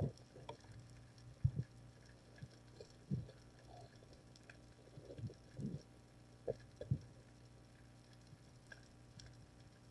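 Faint, muffled underwater knocks and bumps, about half a dozen at irregular intervals, with light scattered ticking between them.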